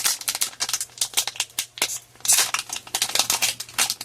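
Pokémon TCG booster pack's foil wrapper being handled and crinkled, a quick run of crackles and clicks with a denser rustle about two seconds in.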